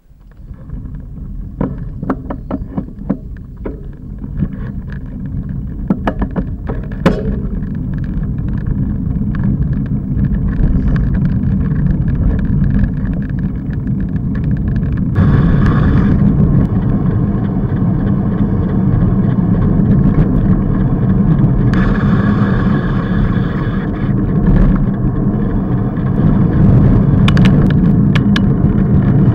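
Wind rushing over the microphone of a bicycle's handlebar-mounted camera, with road rumble from the bike rolling over the street, growing louder in the first half as the bike gathers speed. Scattered sharp clicks and knocks in the first several seconds.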